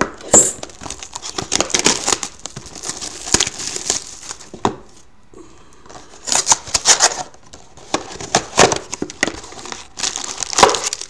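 Plastic shrink-wrap being torn off a sealed cardboard box of trading cards, and the box opened, in irregular crinkles and rips with a short lull in the middle. Near the end, foil card packs rustle as they are handled.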